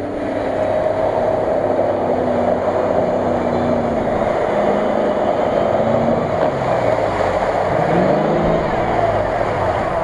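Land Rover Discovery 4x4 engine revving as it drives through mud and standing water, with the pitch rising and falling several times in the second half, over the wash of water splashing from the tyres.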